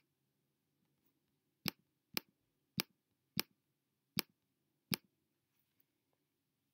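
Computer mouse clicking: about seven sharp, separate clicks, most of them half a second to three-quarters of a second apart, ending about five seconds in.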